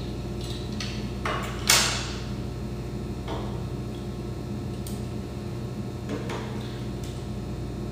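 Small plastic child-locator units being handled and set down on a tabletop: a few light clicks and knocks, the loudest about two seconds in, over a steady low hum.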